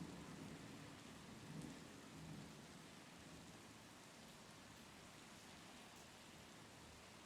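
Faint, steady rain hiss, with the last of a low thunder rumble dying away in the first two seconds or so.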